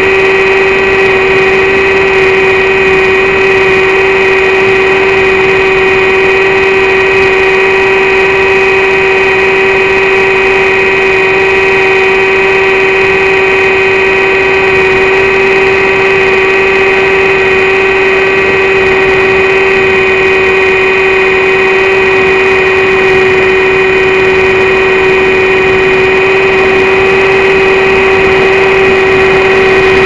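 XUAV Skysurfer RC plane's electric motor and propeller running at steady throttle, heard through the onboard camera's microphone: a loud, constant whine over a rush of air noise.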